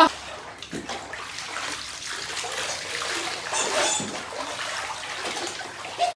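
Water sloshing and splashing in a plastic kiddie pool as dogs wade through it, with a brief louder splash a little past halfway.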